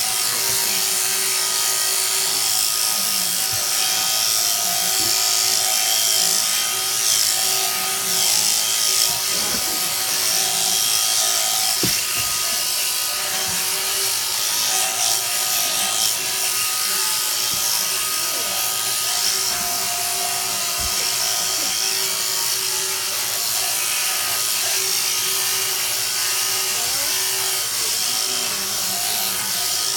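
Electric sheep-shearing handpiece running steadily with a high mechanical buzz as it cuts the fleece off a sheep.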